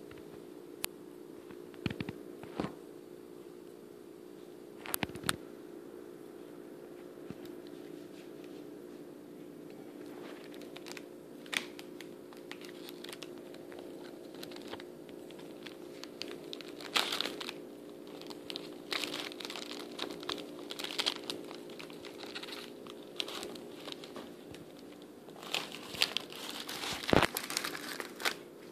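A hamster gnawing and scrabbling at a large crusty piece of bread on a paper napkin: small crackles, crunches and rustling paper, a few scattered clicks at first, then busier in the second half, over a steady low hum.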